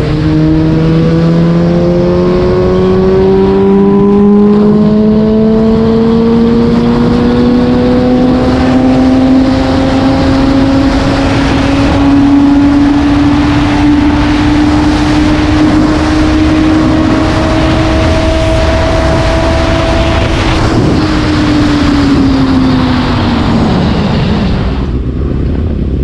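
Suzuki GSX-S750's inline-four engine pulling hard in one gear, its revs climbing slowly and steadily for about twenty seconds, then dropping away as the throttle closes and the bike slows. A steady rush of wind runs underneath.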